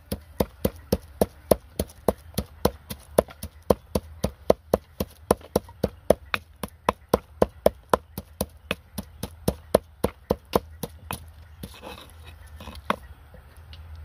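Pestle pounding fresh chilies in a mortar: steady, sharp knocks at about four a second, which stop near the end, leaving a few scattered strikes.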